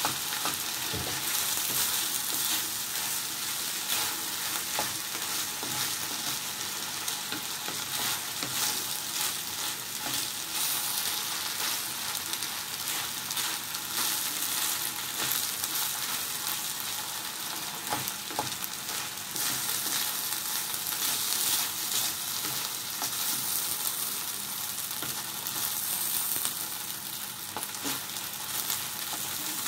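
Nasi goreng (fried rice with diced meats and peppers) sizzling steadily in a frying pan while a wooden spatula stirs and scrapes it, with frequent small clicks of the utensil against the pan.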